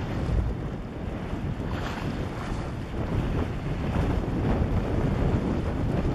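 Wind buffeting the camera microphone in gusts, over the sound of choppy water.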